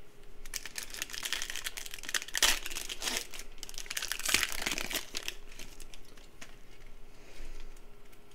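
A Panini Prizm football card pack being torn open by hand, its wrapper crinkling and tearing for a few seconds, then dying down after about five seconds to a few light rustles as the cards come out.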